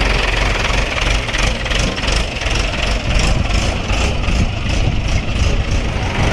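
Heavy diesel engine running steadily with a low hum, with a quick rhythmic rattle of about four ticks a second through the middle.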